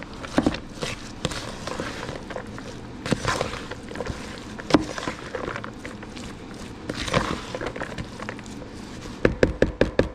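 Spoon mixing creamy coleslaw in a bowl: wet squelching and scraping with scattered clicks and knocks, then a quick run of about eight taps near the end.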